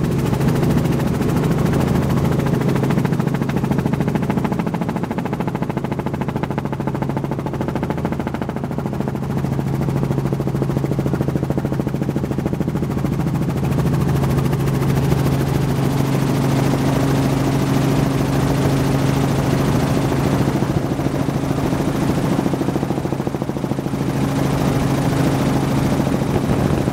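Robinson R44 Raven II helicopter in flight, heard from inside the cabin with the doors off. The rotor beats rapidly and the six-cylinder piston engine drones steadily. A second, higher steady tone joins about halfway through.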